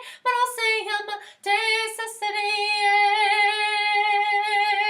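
A woman singing solo and unaccompanied, ending the phrase on a long, steady held note from about two seconds in.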